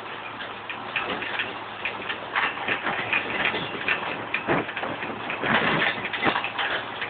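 A farm tractor driving across stubble: irregular rattles and clicks over a faint steady engine hum, with handling noise on the phone's microphone.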